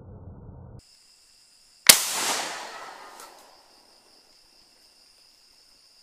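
A single rifle shot about two seconds in: a sharp crack followed by a rolling echo that dies away over about a second and a half. Night insects keep up a steady high-pitched chorus underneath. It opens with a low rumble that cuts off abruptly under a second in.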